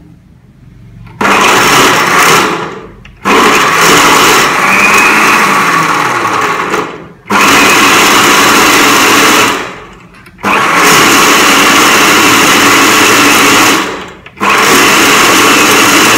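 Electric countertop blender run in five bursts of a few seconds each with short stops between, starting about a second in, blending falsa berries with water, sugar and black salt into juice.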